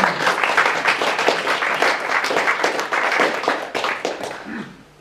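Audience applauding, starting sharply and dying away near the end.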